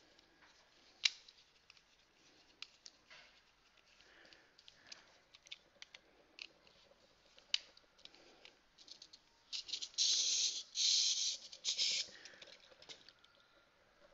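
Small screwdriver turning a tiny screw into the plastic battery cover of a toy robot: scattered light clicks and scrapes, with a louder rasping stretch of about two seconds near ten seconds in.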